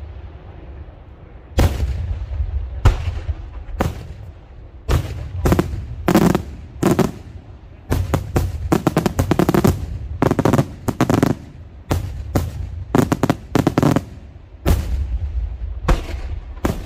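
Daytime aerial fireworks shells bursting overhead: single sharp bangs at first, then rapid volleys of crackling reports in dense clusters, with low rumbling echoes between them.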